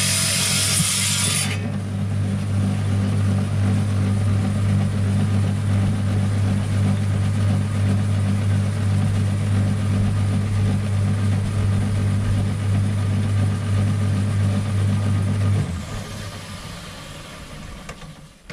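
Wet saw's circular blade grinding through a rock nodule for about the first second and a half, then the saw's motor running freely with a steady hum. About sixteen seconds in the motor is switched off and winds down, its pitch falling.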